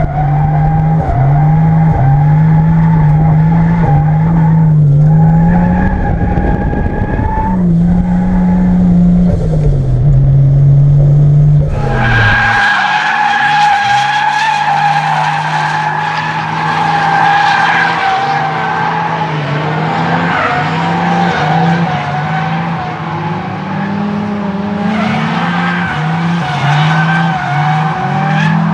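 Toyota Supra MK3's 7M-GTE turbocharged straight-six revving up and down while the rear tyres squeal in a long drift. About twelve seconds in, the deep low end drops away and the tyre squeal becomes louder and brighter.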